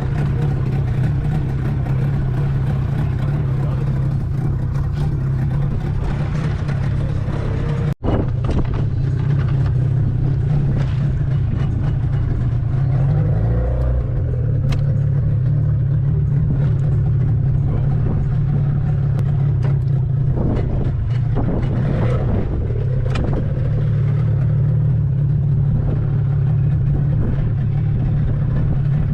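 Boat engine running steadily while the boat is under way, with a strong low hum; the sound cuts out for an instant about eight seconds in, and the engine pitch shifts briefly a little later.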